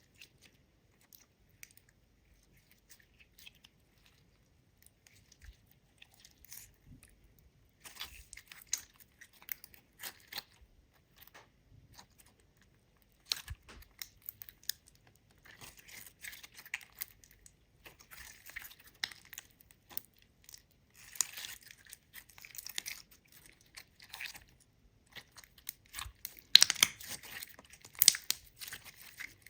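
Clear slime being mixed with glitter and squished by hand, making crackling and clicking sounds. The sounds are sparse and faint at first, grow denser after about eight seconds, and are loudest near the end.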